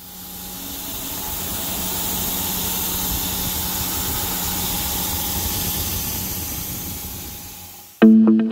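Palbit Tetrafeed high-feed roughing face mill cutting metal on a CNC machining center: a steady hissing rush of cutting noise with a faint hum under it, fading in over the first two seconds and out again near the end. Music with plucked guitar notes starts just before the end.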